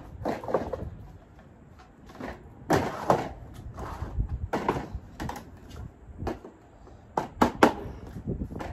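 Plastic shelving sections being struck with a mallet and knocked about while they are fitted together: a string of sharp, uneven knocks and clatters, with the loudest ones about three seconds in and near the end.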